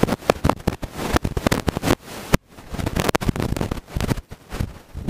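Close camera handling noise: rapid irregular clicks, knocks and rustles right at the microphone, briefly dropping away about two and a half seconds in.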